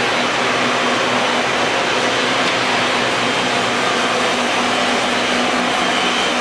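Steady whir of running industrial machinery, with a faint steady low hum underneath.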